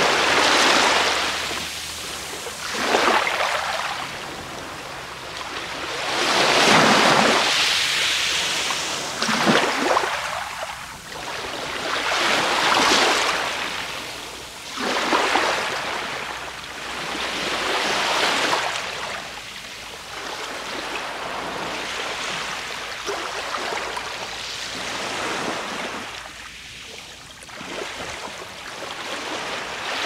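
Small waves of the calm Black Sea lapping and washing over a shelly sand shore, each wave a soft rush that swells and fades every two to three seconds, softer over the last ten seconds.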